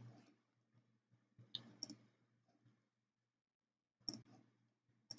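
Near silence with a few faint computer mouse and keyboard clicks: two close together about one and a half seconds in, one near four seconds, and one at the very end.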